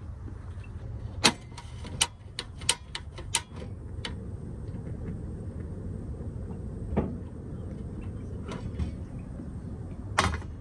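Sharp clicks and taps of seasoning containers and utensils being handled while fish is prepared for frying: about six in quick succession in the first few seconds, one about seven seconds in and another near the end, over a low steady rumble.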